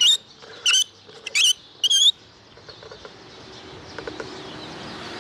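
Four short, high, wavering squeaks in the first two seconds as the wide-angle lens attachment is fitted onto the Sony ZV1 camera, plastic rubbing against the lens barrel right at the microphone. Quiet after that.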